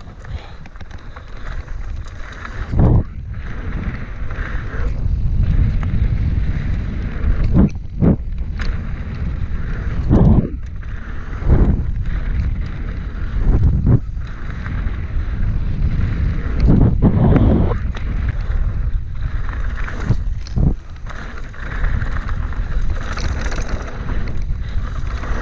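Mountain bike riding fast down a dirt jump trail: wind buffeting the action camera's microphone and knobby tyres rolling over packed dirt, with heavy thumps from landings and bumps every few seconds.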